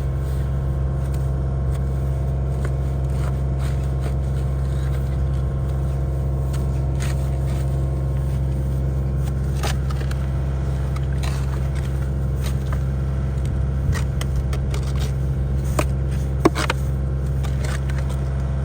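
Engine idling steadily, with a few short scrapes and clicks now and then.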